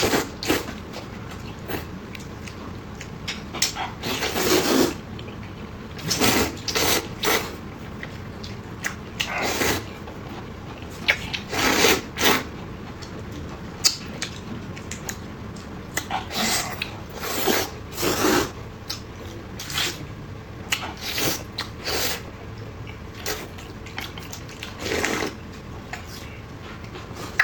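Close-miked eating: wet chewing, sucking and slurping of saucy food in irregular bursts about a second apart.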